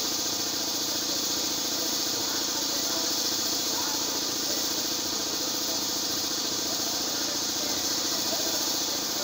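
A motor running steadily: a fast, even pulsing hum under a constant high hiss, unchanging throughout.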